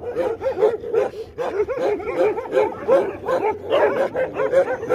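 Many dogs yipping and barking together in a dense, overlapping chorus of short calls that rise and fall, several a second.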